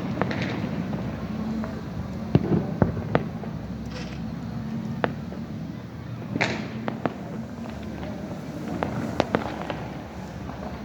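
Fireworks and firecrackers going off all around: scattered sharp bangs and pops over a steady crackling din, with a cluster of the loudest bangs a little over two seconds in.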